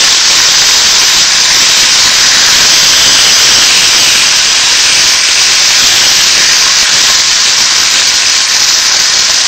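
Floured beef sirloin fillets frying in hot olive oil with softened onion in a pan: a steady, loud sizzle.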